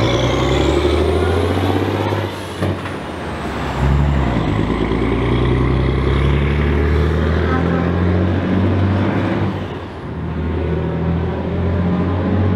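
Volvo F16 truck's 16-litre straight-six turbodiesel pulling away under load, with a high turbo whistle that rises and then falls over the first few seconds. About two seconds in, the engine note drops away for a moment with a sharp click, then pulls again steadily.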